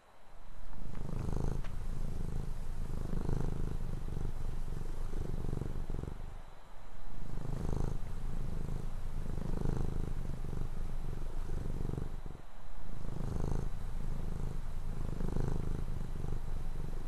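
Low purring rumble that runs continuously and swells and eases about every two seconds, in time with breathing. It dips briefly twice, about six and twelve seconds in.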